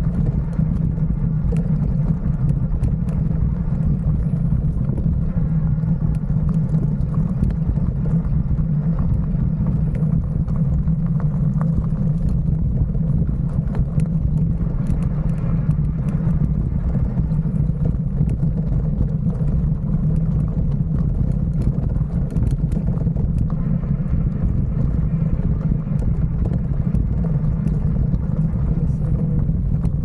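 Riding noise from a handlebar-mounted camera on a trail: a steady low rumble with frequent small clicks and rattles as the handlebars bounce over the rough ground.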